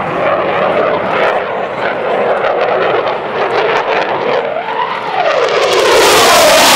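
Jet noise from a Eurofighter Typhoon's EJ200 engines. About two-thirds of the way through, a sweeping pitch rises and falls. Near the end the sound grows suddenly louder and hissier as the jet comes close.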